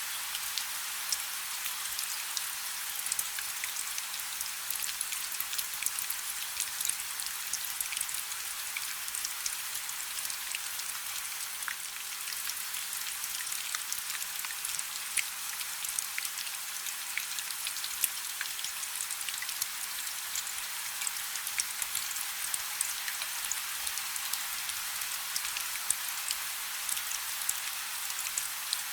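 Steady rain falling: a dense, even hiss with many individual drops ticking sharply on a surface.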